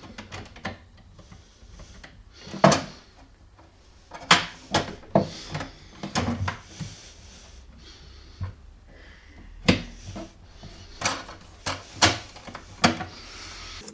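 Wooden drawer unit being handled: a string of sharp knocks and clacks, with brief sliding and rubbing sounds in between, as drawers or doors are moved and shut.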